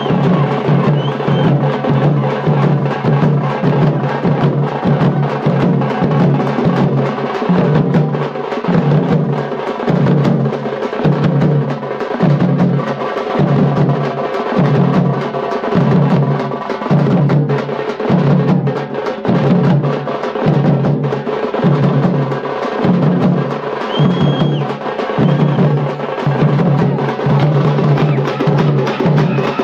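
Veeragase folk ensemble music: large drums, such as the karade, beating a steady repeating pattern, with sharp clicking cymbal strokes over a held, sustained tone.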